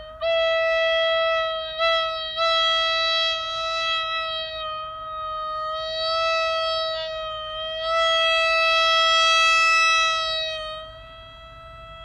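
Marine horn blowing one long, steady note with many overtones, its loudness swelling and sagging several times with brief dips about two seconds in, then falling much quieter about eleven seconds in while the note keeps sounding.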